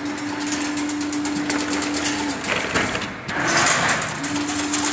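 Chain link fence weaving machine running: a fast, even mechanical clatter with a steady low hum that drops out about two seconds in and comes back near the end.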